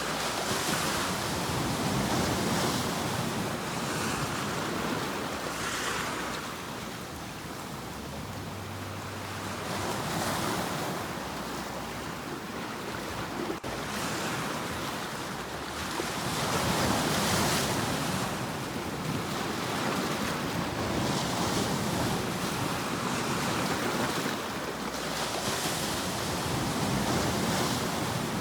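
Sea waves breaking and washing up on a shore, the surf swelling and ebbing every few seconds.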